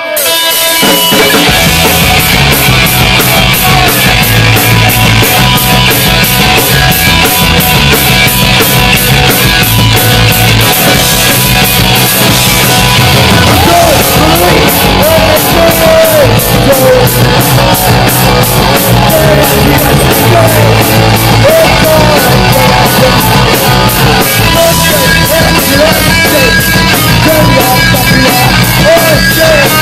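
Punk rock band playing live at full volume: distorted electric guitars, bass and a fast, driving drumbeat. A man's singing comes in about halfway through.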